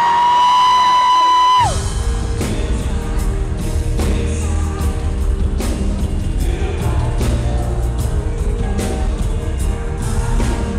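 A high, held scream from the audience cuts off about a second and a half in. Then a live pop band comes in with heavy bass and a steady drum beat, and a male lead singer sings over it.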